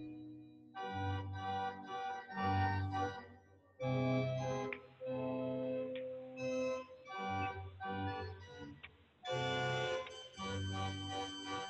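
Organ playing a hymn or carol tune in sustained full chords, phrase by phrase with short breaks between, with no congregation singing along.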